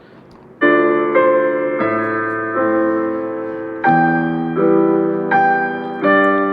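Background music: piano chords, one struck about every second and each dying away, beginning about half a second in.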